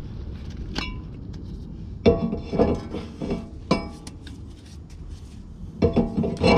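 A new drilled-and-slotted metal brake rotor clinking and ringing as it is handled and slid onto the wheel hub's studs. One knock comes about a second in, a run of clanks from about two to four seconds, and another near the end.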